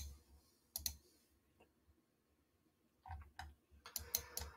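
Faint, scattered clicks of a computer mouse and keyboard: two single clicks in the first second, then a quick run of clicks from about three seconds in.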